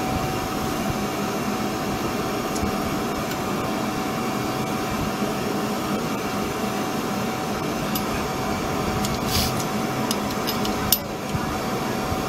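Steady background hum with a constant tone, like a fan or air-conditioning unit running. Over it, a few light metallic clicks late on, the sharpest about eleven seconds in, as the rear drum brake's shoe hold-down spring clips are pushed in and twisted off by hand.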